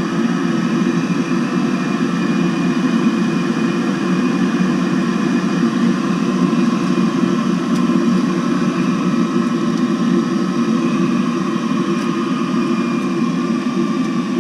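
Navien NCB-240 gas combi boiler firing: its combustion blower and burner run with a steady rushing noise and a faint fan whine that drops slightly in pitch near the end.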